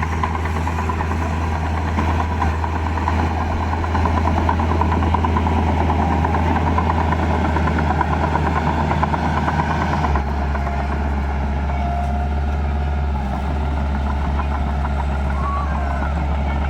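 Heavy diesel engine of earthmoving machinery running steadily, a little louder for a few seconds, then its low note shifting slightly about ten seconds in.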